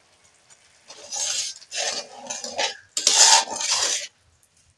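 Metal spatula stirring and scraping wet spice paste around an aluminium kadai, in several quick strokes starting about a second in. The spices have been fried and a little water has just been added.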